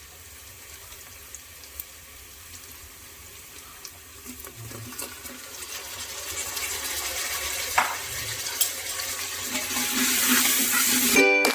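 Kitchen cooking sounds: a hiss of running water or sizzling that grows steadily louder, with a few light clicks of utensils on a pot. Ukulele music starts right at the end.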